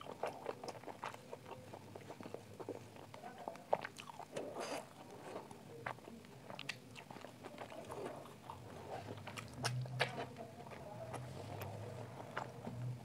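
Close-up eating sounds: chewing chicken, with many short wet mouth clicks and finger licking. A low closed-mouth hum comes in toward the end.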